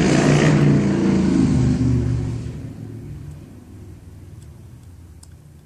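A motor vehicle's engine running loud at first, then fading away over the next few seconds. A few faint ticks sound in the second half.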